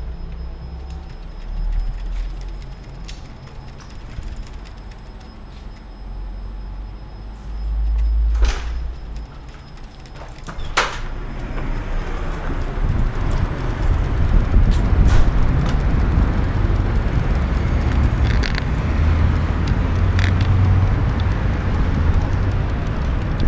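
A bicycle is wheeled by hand across a hard floor, with keys jangling and a couple of sharp knocks. From about halfway it gives way to a steady rush of wind and tyre noise as the bicycle, with the microphone mounted on it, is ridden outdoors.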